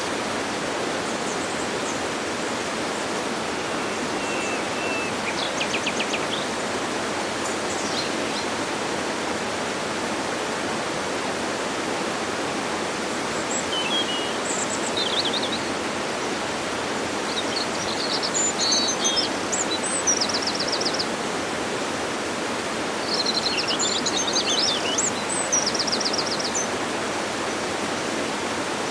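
Steady rush of a waterfall, with birds calling over it: a few chirps and a quick trill early on, then busier bursts of chirps and rapid trills in the second half.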